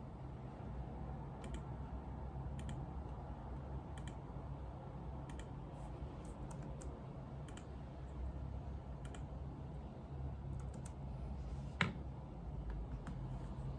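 Computer keyboard keys clicking sporadically, a single keystroke or a short cluster every second or so, with one sharper click near the end, over a steady low room hum.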